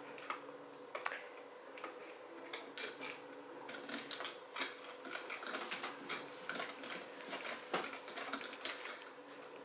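Irregular light clicks and taps of a plastic plunger mixer worked up and down in a pitcher of pudding mix and milk.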